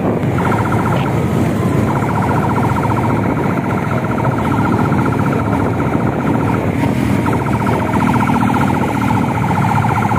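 An escort vehicle's siren sounding a rapid warble, starting about half a second in and dropping out briefly a couple of times, over steady engine and road rumble.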